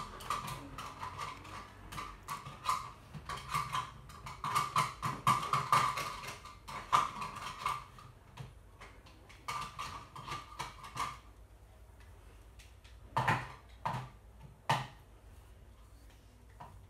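Plastic toy kitchen utensils clattering and knocking against a toy pot as they are stirred and handled, in quick irregular clicks through the first half, over a steady buzzing tone that returns briefly a little later. Near the end come a few separate, louder knocks.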